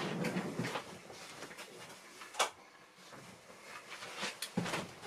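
Rustling and soft knocks of a person getting up and moving about, with one sharp click about two and a half seconds in as a room light is switched on, and a few more knocks near the end.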